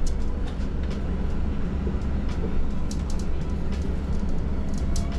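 City bus running, heard from inside the cabin: a steady low engine-and-road rumble with scattered clicks and rattles from the bodywork as the bus creeps along in heavy traffic.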